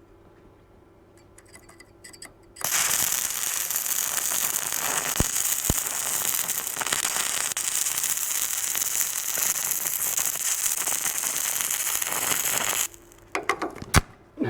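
Stick (arc) welding: the electrode burns with a steady, loud crackling sizzle for about ten seconds, starting a couple of seconds in and cutting off suddenly as the rod burns down short. A few sharp knocks follow after the arc stops.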